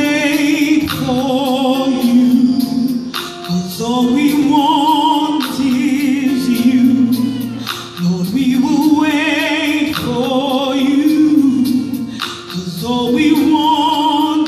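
Gospel choir and worship band performing live, the choir singing long phrases of held notes with vibrato, a short breath about every four seconds.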